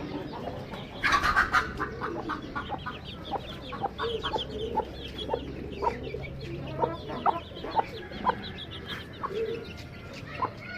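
Chickens clucking, a stream of short calls, with a louder burst of calling about a second in.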